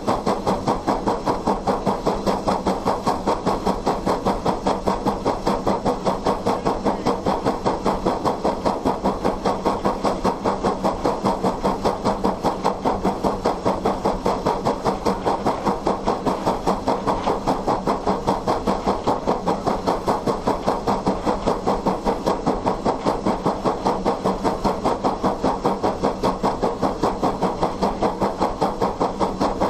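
Hammond Lumber Co. No. 17 steam locomotive's exhaust chuffing from the smokestack while the engine works under way: a steady, even beat of about four chuffs a second.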